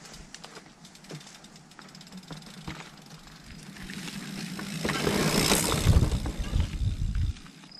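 A mountain bike riding past on a dirt singletrack: tyres rolling over the trail, with light clicks at first, building from about four seconds in to a loud rumbling rush as the bike passes, then stopping abruptly near the end.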